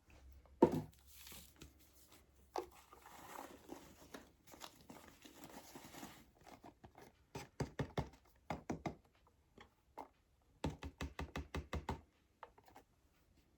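Baking soda poured from a small box into a container with a soft hiss, then the box tapped in two quick runs of light knocks to shake out the last of the powder.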